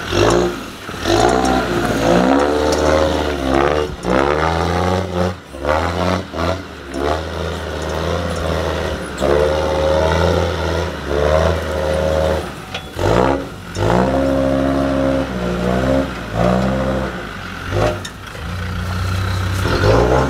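Land Rover Discovery TD5's five-cylinder turbodiesel revving up and down again and again as it crawls over mud and rock, with a few sharp knocks along the way.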